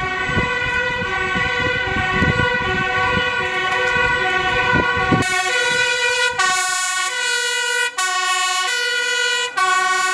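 Fire engine's two-tone siren sounding, switching between a higher and a lower pitch about every three-quarters of a second. A low rumble underneath in the first half stops about five seconds in.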